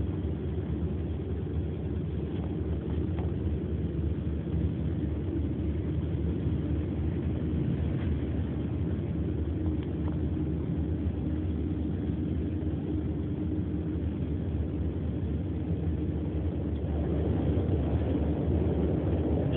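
Steady low rumble of a car's engine and road noise heard from inside the cabin, growing a little louder near the end.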